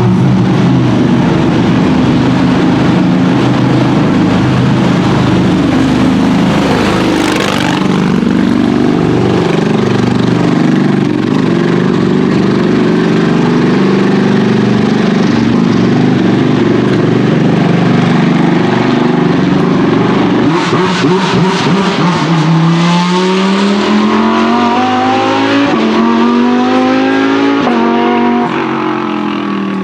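GT race cars running at speed, several engines overlapping as cars pass. Near the end one car accelerates hard, its engine pitch climbing and dropping back with each of three upshifts.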